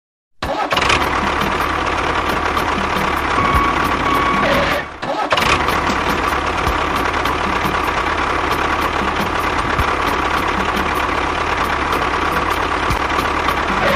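A small machine running steadily, starting abruptly about half a second in, with a light ticking about three times a second and a brief drop about five seconds in.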